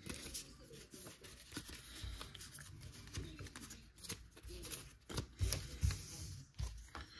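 Pokémon trading cards being handled and sorted through by hand: light rustling and clicking of card against card, with a few soft knocks in the last couple of seconds.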